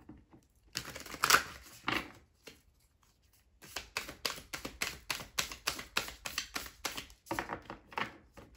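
A deck of tarot cards being shuffled by hand: a few rustling strokes, a short pause, then a quick run of card slaps at about four a second.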